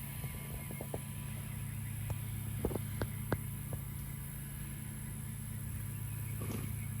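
Horses grazing: scattered short clicks and crunches of grass being torn and chewed, over a steady low hum.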